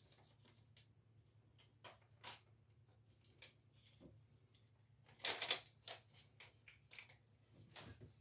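Scattered light clicks and knocks, with a quick cluster of louder knocks about five seconds in, over a faint steady hum.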